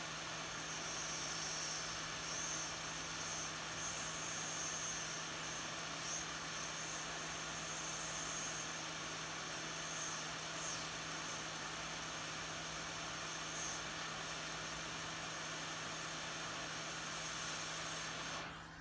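Hot air rework station blowing through its nozzle onto a BGA chip, heating the solder so the chip can be lifted off the circuit board: a steady hiss with a low hum under it, cutting off near the end.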